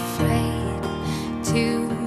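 Soft background music, with a guitar among the instruments.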